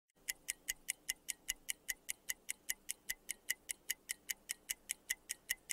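Stopwatch ticking sound effect, about five even ticks a second, starting a moment in: a countdown timer running while the puzzle is to be answered.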